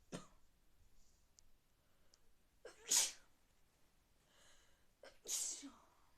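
A person with a cold sneezing: a short sneeze right at the start, then two louder sneezes about three and five seconds in, the middle one the loudest.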